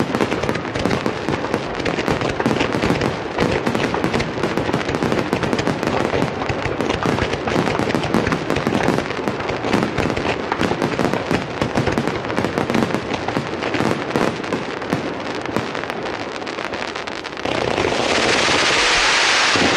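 Fireworks finale: aerial shells bursting in rapid, overlapping succession from close beneath, with dense crackling. About seventeen seconds in, the separate bursts give way to a louder, even hissing rush.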